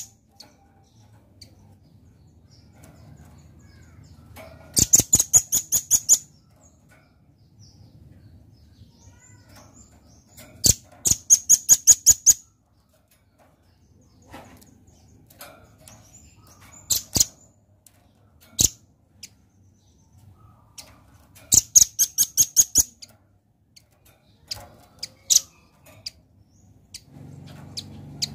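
Velvet-fronted nuthatch (rambatan paruh merah) calling: several quick runs of sharp, high repeated chipping notes, each run lasting about a second and a half, with a few single notes between them.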